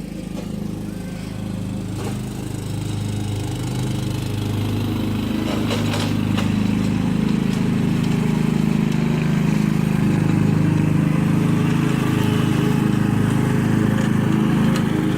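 Riding lawnmower engine running steadily while mowing, growing louder over the first half and then holding level.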